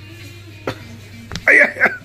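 Faint background music over a low steady hum, with a couple of light knocks. About one and a half seconds in, a small child gives a short, high-pitched playful cry.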